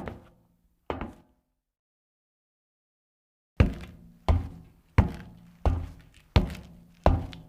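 Two footsteps, then a pause of dead silence, then a new, heavier series of footsteps with a deep thud to each, walking at an even pace of about one step every 0.7 seconds.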